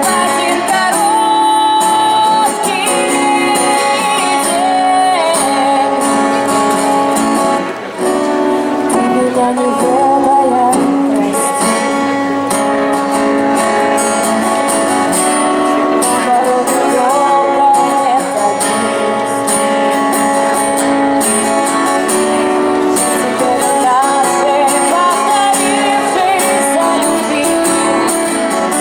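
A song performed live: singing over acoustic guitar accompaniment.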